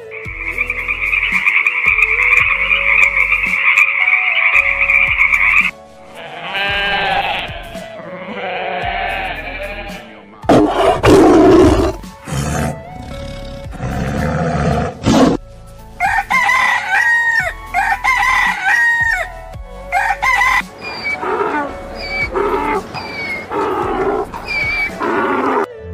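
A string of different animal calls one after another: first a tree frog's steady, pulsing trill for about six seconds, then a series of other animal cries, loud and harsh in the middle and shorter repeated calls near the end.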